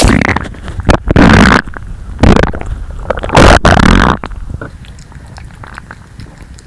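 Human stomach rumbling and gurgling, picked up by a microphone held against the bare belly: four loud gurgles in the first four seconds, then only faint rumbling.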